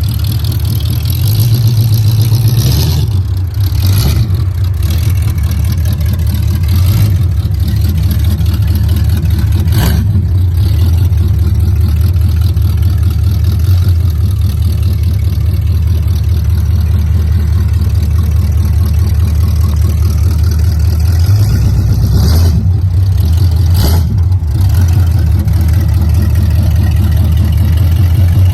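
Oldsmobile 350 Rocket V8 running open through long-tube headers with no exhaust system fitted, a loud, steady low pulse, broken by a few short sharp noises.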